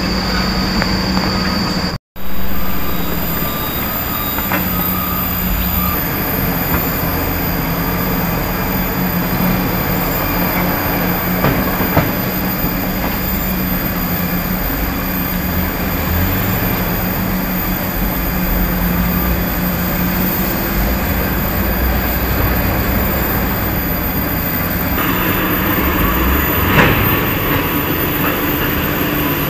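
Heavy diesel engines of Hino dump trucks running, a steady dense rumble with a constant hum. The sound cuts out for an instant about two seconds in, then runs on.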